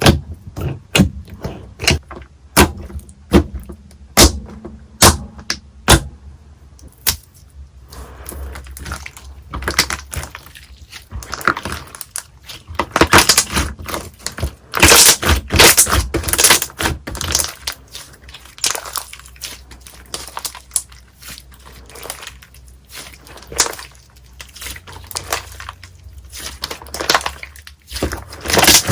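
Slime being handled by hand: sharp clicking pops about twice a second for the first few seconds, then denser crackling and squishing as it is pressed and worked.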